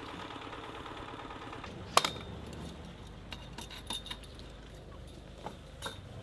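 A peg hammer strikes a tent peg on a hard wooden camping deck with one sharp metallic hit about two seconds in, followed by a few lighter metallic clinks. The peg will not drive in because the deck is too hard.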